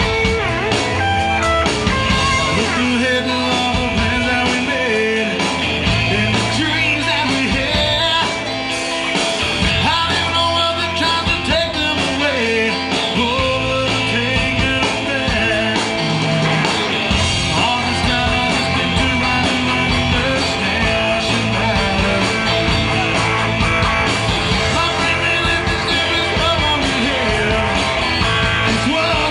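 Live rock band playing: a male singer on a handheld microphone over electric guitars and a drum kit.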